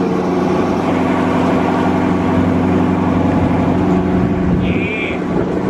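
Dodge Charger 392's 6.4-litre HEMI V8 idling steadily just after a cold start.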